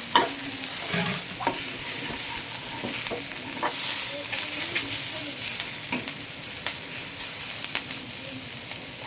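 Chopped capsicum frying in butter with browned onions and garlic, sizzling steadily while a spatula stirs it, clicking and scraping against the pan now and then.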